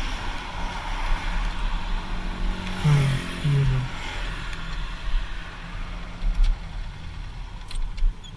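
Motorcycle riding with steady engine rumble and wind noise, the noise thinning as it slows. About three seconds in, a vehicle horn gives two short beeps, and a few light clicks come near the end.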